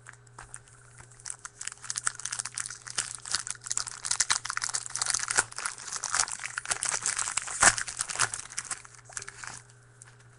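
A trading-card pack's wrapper being torn open and crinkled by hand: a busy run of crackling that stops near the end, with one sharper, louder crackle about three-quarters of the way through.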